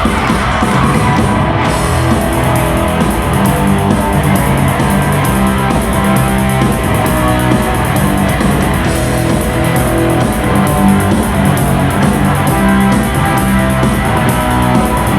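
Rock band playing an instrumental introduction: electric guitar over bass and drum kit, steady and loud.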